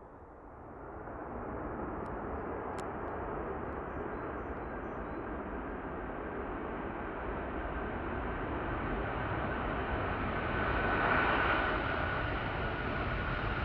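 Boeing 747 turbofan engines on landing, growing louder as the jet comes in: a broad rushing roar with a steady high fan whine that strengthens in the second half and is loudest about eleven seconds in.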